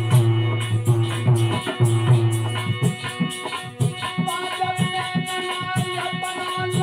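Alha folk music: harmonium with hand-drum beats and a jingling rattle keeping time. A long note is held through the second half.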